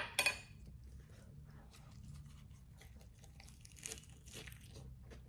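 Close-up eating sounds of a crisp lettuce wrap filled with chicken: a string of small crisp crunches, with louder crunches about four seconds in as the lettuce is bitten.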